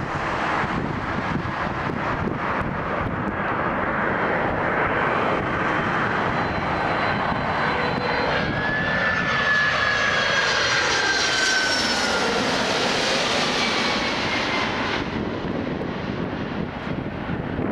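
Boeing 767-300ER jet engines passing close by on landing approach. The engine noise builds, and a whine slides down in pitch as the airliner goes past, loudest around the middle. The high whine drops away about fifteen seconds in, leaving a steady rumble of noise.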